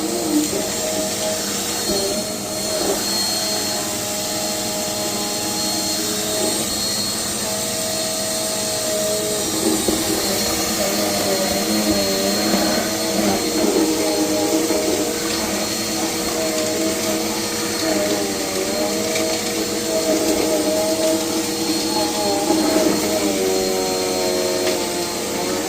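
Vacuum cleaner running steadily over a concrete floor, its motor whine shifting slightly in pitch now and then.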